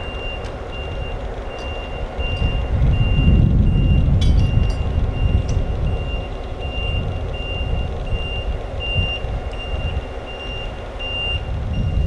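A backup alarm beeps steadily, about two high-pitched beeps a second, over the low rumble of an idling EMD GP9 first-generation diesel locomotive.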